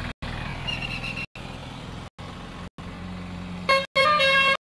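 A vehicle horn honks loudly, starting about three and a half seconds in and held, over a steady low engine hum. The sound drops out to silence for a split second every second or so.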